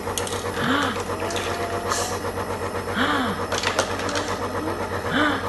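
Compressor nebulizer motor humming steadily while it runs a treatment. Three short sounds from the child breathing at the mask come about two seconds apart.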